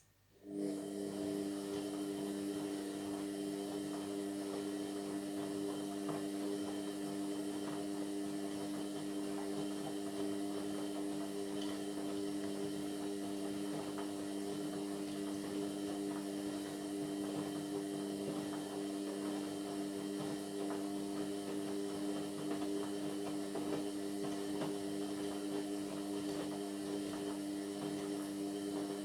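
Indesit MyTime washing machine's drain pump humming steadily as it pumps out water mid-cycle; the hum starts abruptly about half a second in.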